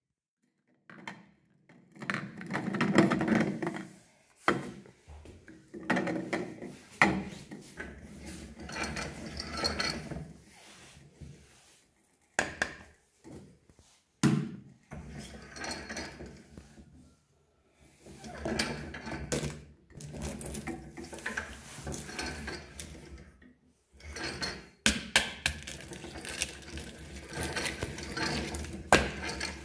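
A hand-cranked metal meat grinder being handled and put together on a wooden table: irregular clatter of metal parts, sharp knocks and clicks, and scraping, with short pauses between bursts of handling.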